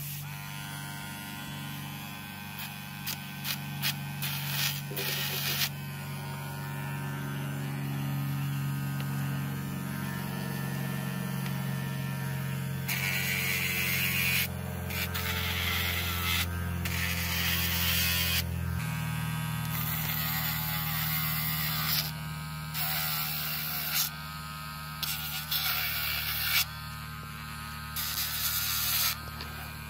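Cordless Dremel pet nail grinder with a sanding drum running steadily, its small motor humming, while it sands a dog's nails. From about halfway through, gritty sanding noise comes and goes in stretches of one to three seconds as the drum is pressed against each nail, and the motor's note shifts slightly partway through.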